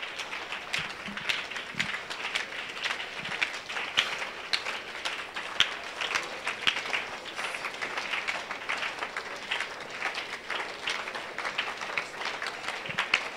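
A congregation clapping their hands: many overlapping, irregular claps, sharp and uneven, over a steady wash of crowd noise.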